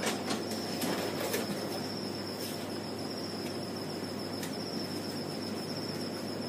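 Steady background noise: a thin high-pitched whine over a low hum, with a few faint clicks near the start and end.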